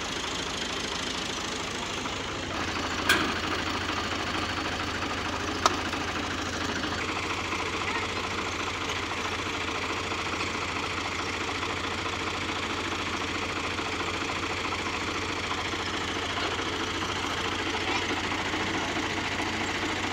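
Tractor's diesel engine idling steadily, with two sharp knocks about three and five and a half seconds in.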